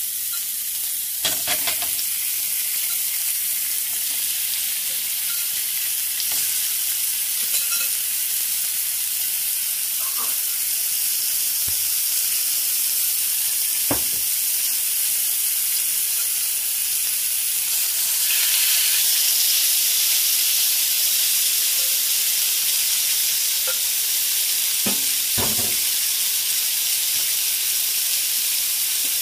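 Turmeric-and-chili-marinated fish steaks sizzling steadily in shallow oil in a non-stick frying pan, with a few light knocks. The sizzle grows a little louder about two-thirds of the way through.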